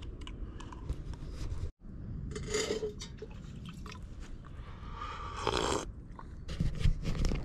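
A person sipping and slurping from a ceramic mug: two short noisy slurps a few seconds apart, with small clicks near the end.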